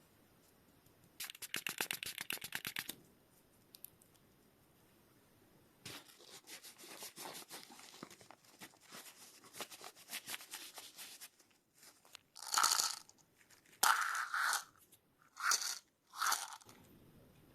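Bicycle freehub pawls ratcheting in quick runs of clicks as the hub is turned. Near the end come four short hissing bursts.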